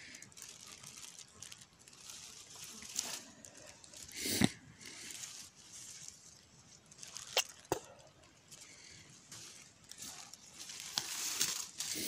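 Rustling and crinkling of blackberry leaves and dry undergrowth as the plants are handled and pushed aside, with a sharp knock about four seconds in and two lighter clicks a little past the middle.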